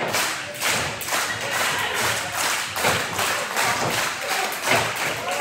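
A run of sharp thuds and slaps, about three a second, from the wrestling ring and the crowd around it.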